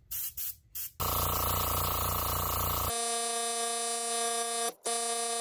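Airbrush spraying paint: a few short puffs of air, then a steady hiss. About three seconds in, a steady electric buzz from a small motor takes over and stops twice, briefly, near the end.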